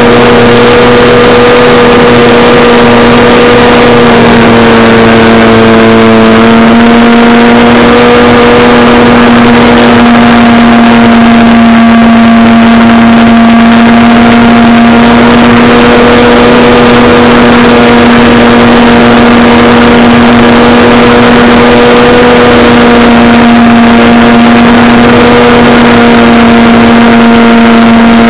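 Electric motor and propeller of a Durafly Tidewater RC seaplane running at a steady in-flight throttle, heard loud from the onboard camera with a hiss of rushing air. The pitch steps up slightly about six seconds in.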